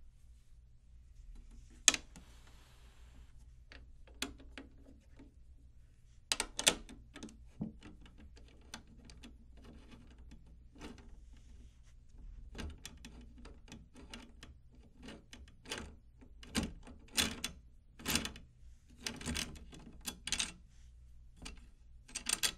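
Steel drum tension rods being set through a drum's chrome hoop and turned by hand into the lugs: irregular metallic clicks and short rattles, sharpest about two seconds in and at the very end.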